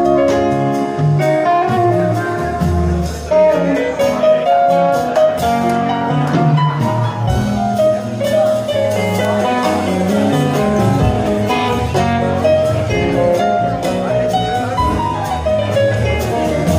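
Live rock band playing an instrumental passage: electric and acoustic guitars over drums.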